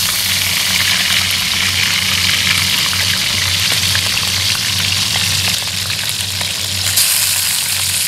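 Field rats frying in hot oil: a steady sizzle with many small crackles and one sharper pop about seven seconds in, over a steady low hum.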